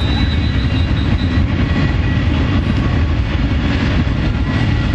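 Steady low rumbling noise of wind buffeting the camera's microphone outdoors.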